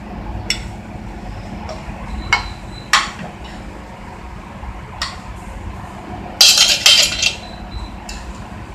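Metal kitchen utensils and cookware clinking as a seared steak is moved from a skillet onto a plate: a few separate clinks, then a louder rapid clatter about six and a half seconds in, over a steady low hum.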